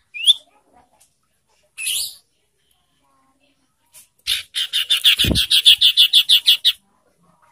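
Common iora calling: a quick upward-sweeping chirp, a short harsh note, then a fast, even trill of about seven notes a second lasting some two and a half seconds. A low thump sounds midway through the trill.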